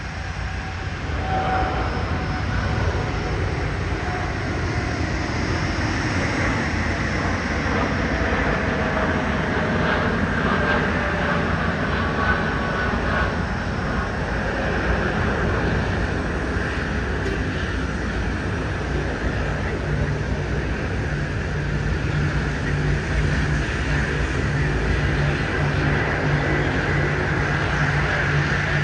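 Jet roar from a Qantas Boeing 787-9's Rolls-Royce Trent 1000 turbofans at climb power after takeoff. The roar is steady, with a few faint tones sliding slowly down in pitch in the first half.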